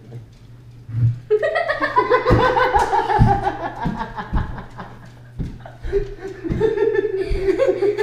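A loud falling cry about a second in breaks into laughter from a woman and a man, with a few short low thumps among the laughs.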